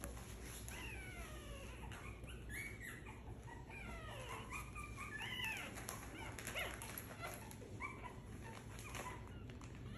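Young puppies whimpering and crying: many short, high, squeaky cries that mostly fall in pitch, overlapping one after another. They are hungry and crying for their mothers.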